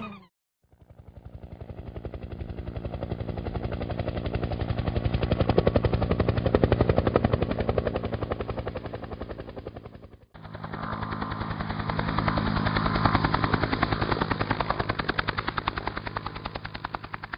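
Helicopter rotor blades chopping in a rapid, even beat, swelling and then fading away. After a sudden cut about ten seconds in, a second helicopter recording swells and fades the same way.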